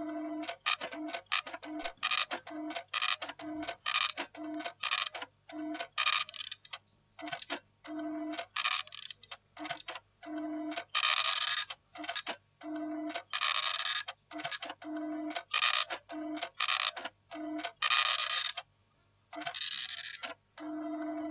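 Glitchy electronic soundtrack: short bursts of hiss and clicks in an uneven rhythm, with brief low beeps, each cutting off abruptly to silence.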